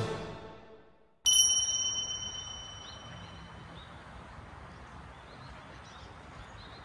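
Background music fades out. About a second in, a single bright metallic ding rings out and dies away over about two seconds, followed by faint outdoor background with faint chirps.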